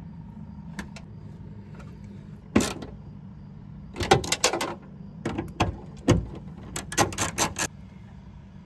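Ratchet with a long extension working the tail-light mounting bolts inside a car's trunk lid: scattered sharp clicks and knocks, with quick runs of four or five clicks a second about halfway through and near the end, over a low steady hum.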